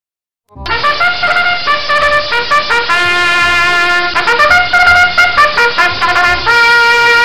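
A trumpet playing a quick tune of short notes, starting about half a second in and ending on a long held note.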